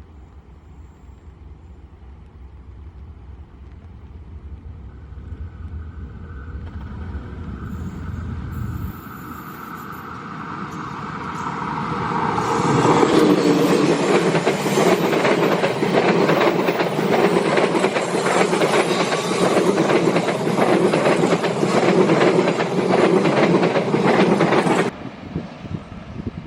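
A train approaching and passing close by, growing louder through the first half, then a loud pass with fast clattering of wheels over the rail joints that cuts off suddenly near the end.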